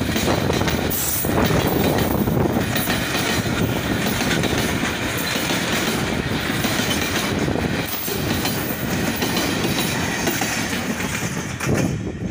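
Freight train passing close by on the rails, its wagons rolling past with a steady, loud noise that cuts off near the end.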